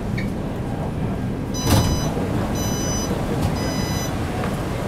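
Metro train doors opening at a station: a knock as the doors release, then three electronic door-warning beeps about a second apart, over the steady hum of the train car.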